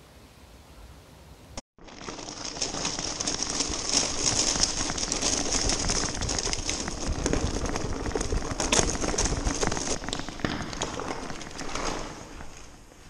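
Bicycle tyres rolling over loose, wet rubble and puddles: a dense run of small clicks and crackles. It starts about two seconds in, after a short gap, and dies down near the end.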